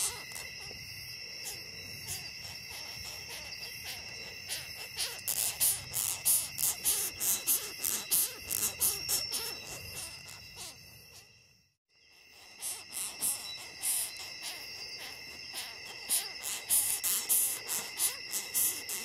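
Longhorn beetle stridulation: rapid, irregular dry clicking and rasping over steady high-pitched tones. It fades out briefly around the middle, then starts again.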